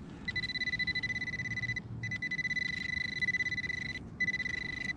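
Handheld metal-detecting pinpointer sounding a high, rapidly pulsing tone, broken off briefly twice, as its probe sits on a metal target in the dig hole.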